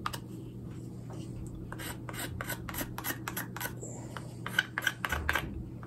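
Quick scraping strokes of a blade or abrasive on a seasoned ash wood spoon, several a second, with a few louder strokes near the end.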